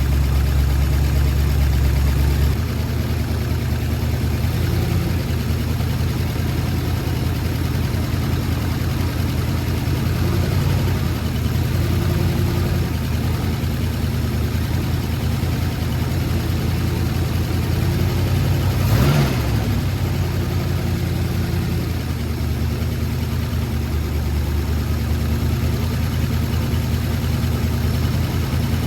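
Ford 390 FE V8 with a Holley carburettor idling steadily, with a bad exhaust leak. There is a brief sharper burst of sound about two-thirds of the way through.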